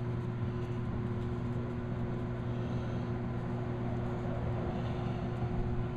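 A washing machine running: a steady low hum that holds level throughout.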